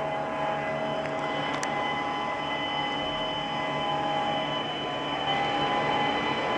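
Steady mechanical drone: a broad rushing noise with several constant tones held over it, growing slightly louder about five seconds in.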